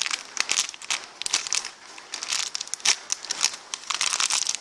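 Irregular crinkling and crackling as squishy toys and their wrapping are handled close to the microphone.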